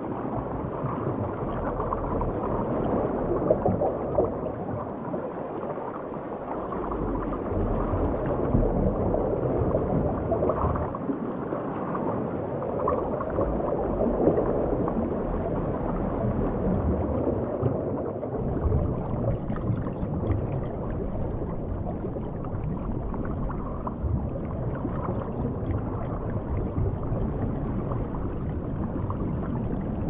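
Underwater ambient sound on a coral reef: a steady, muffled wash of moving water that swells and eases slowly, with a faint crackle above it.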